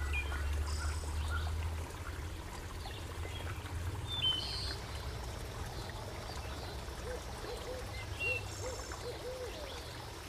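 Shallow creek trickling over rocks, with small birds chirping. A low rumble covers the first two seconds, and near the end an owl gives a series of short, low hoots.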